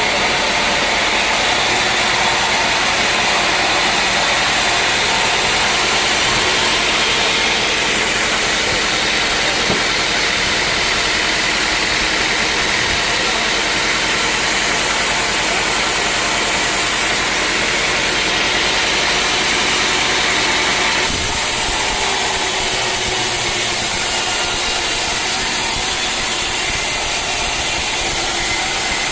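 Sawmill machinery running steadily as the saw cuts through a teak log, a loud even mechanical noise with a hiss. The hiss drops off abruptly about two-thirds of the way through.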